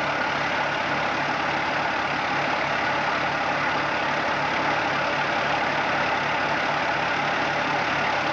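Bulldozer's diesel engine running steadily with a regular low pulsing.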